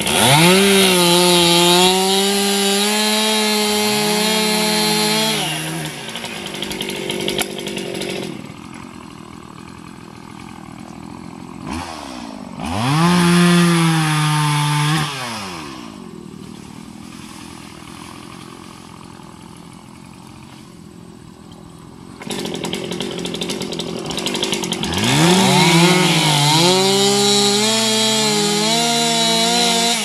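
Chainsaw revving up and running at high speed in three bursts: one right away, a shorter one about 12 seconds in, and another about 25 seconds in. The motor is much quieter between the bursts.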